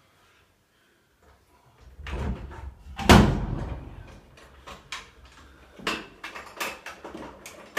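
A low rumble builds into one heavy thump about three seconds in, followed by a string of lighter sharp knocks and clicks.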